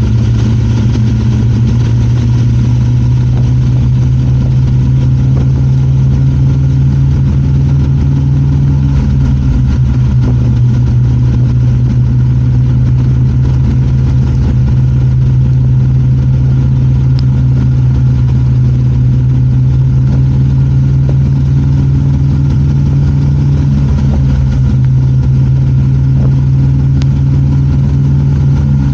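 Yamaha Super Ténéré XT1200Z's 1200 cc parallel-twin engine running at a steady, even pitch while the motorcycle rides through heavy rain. A faint hiss of rain and spray lies under the engine.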